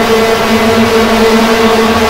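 Industrial noise music: a loud, steady, engine-like droning hum with a hiss of noise over it.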